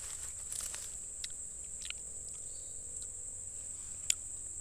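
Insects droning steadily in one high-pitched note, with a few faint clicks and taps, the sharpest about four seconds in.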